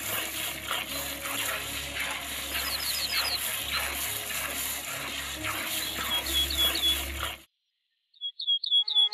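A sheep milked by hand into a metal pail: rhythmic squirts of milk striking the pail, with short runs of high bird chirps. The sound cuts off suddenly about seven seconds in, and a loud run of bird chirps follows near the end.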